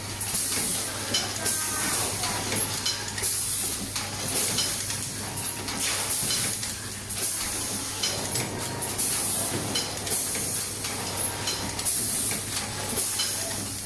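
Toothpick packing machine running: a steady hum with hissing surges every second or two and light ticks from its moving parts.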